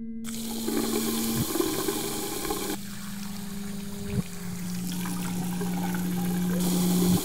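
Water running from a bathroom sink faucet, turned on just after the start and pouring steadily into the basin. Under it is a low, steady humming tone that drops in pitch in sudden steps a few times.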